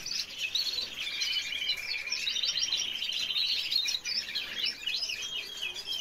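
Spanish timbrado canary singing: a long, evenly pulsed trill that steps up in pitch halfway through, set among shorter chirped and rolling notes.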